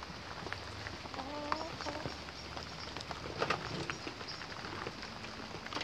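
A chicken roosting in a tree gives a short, soft call of a few notes about a second in, over steady rain with a few scattered taps.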